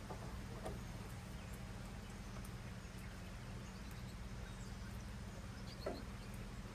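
Quiet background: a steady low hum with a couple of faint soft knocks, one just under a second in and one about six seconds in.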